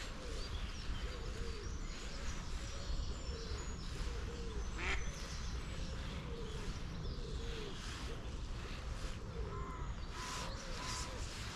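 Ducks quacking softly, short calls repeating about once a second, over a steady low rumble.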